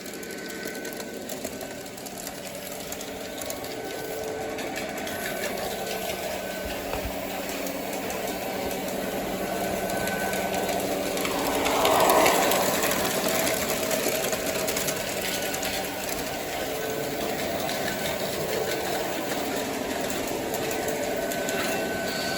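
Electric model train running along the track, its small motor and wheels whirring steadily. It grows louder as it comes closer and is loudest about halfway through.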